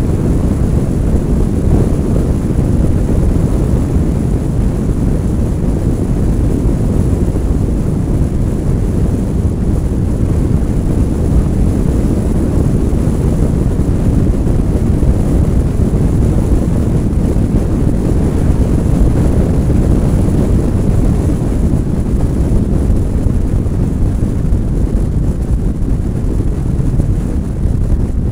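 Steady low rumble of wind buffeting the microphone of a camera mounted outside a moving car, mixed with the car's tyre and road noise.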